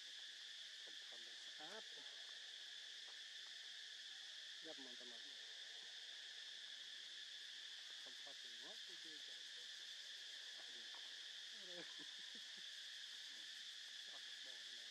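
Faint, steady insect chorus: a continuous high-pitched drone. A few short, faint calls sound underneath every few seconds.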